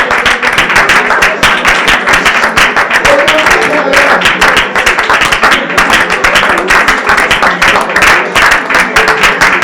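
Congregation clapping hands in a fast, steady rhythm along with music.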